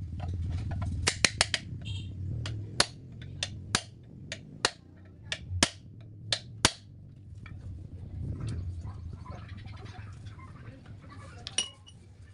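Sharp metallic taps of a hammer on a rivet set, peening the rivets that fasten a new lining to a truck brake shoe. There are about a dozen irregular strikes in the first seven seconds, then one more near the end.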